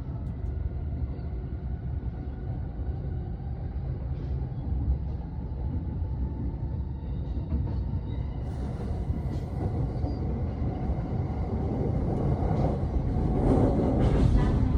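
Electric train running into a station platform: a steady low rumble that grows louder over the last few seconds as it comes in.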